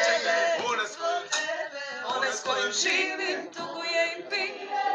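A group of voices singing together without instrumental accompaniment, several voices overlapping on a Serbian-language pop-folk song.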